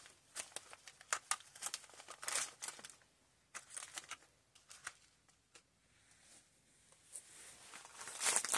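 Wrapped tea sachets crinkling as they are handled and laid down one after another: a quick run of crisp rustles and small taps over the first few seconds, then only a few scattered ones.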